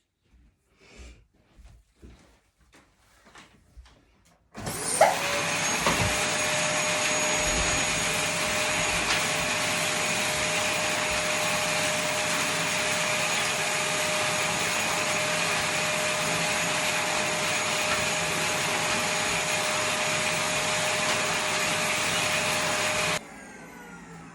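A vacuum cleaner switched on about four and a half seconds in, its motor spinning up to a loud, steady whining run, then switched off near the end and winding down. A few faint knocks come before it starts.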